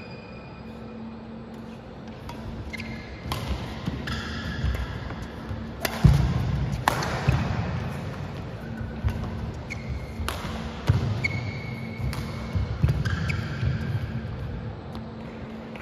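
Badminton rally: sharp racket strikes on the shuttlecock every second or two, the loudest about six seconds in, with short high squeaks of shoes on the court floor and dull footfall thuds between them.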